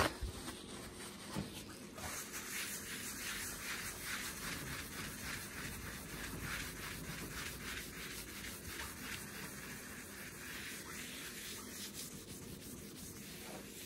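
Paper towel rubbed back and forth over a laminate countertop, wiping up dried chalkboard-paint specks, in quick repeated strokes of about three a second that start about two seconds in.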